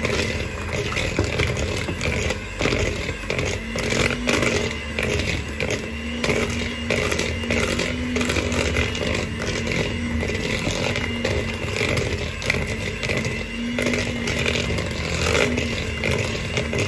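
Electric hand mixer running steadily at speed, its twin wire beaters whisking a mixture and clattering and scraping against the sides of a plastic bowl.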